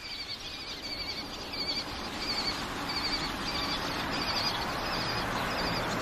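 A flock of lesser kestrels calling at a roost: short high chirps repeating about twice a second over a dense chatter that builds from about two seconds in.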